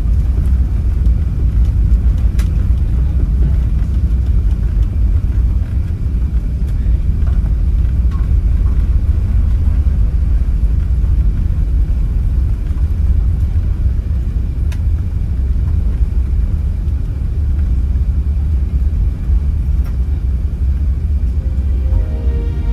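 Steady low rumble inside an Airbus A380 cabin while the aircraft taxis after landing: engines at low power and the rolling of the landing gear heard through the fuselage.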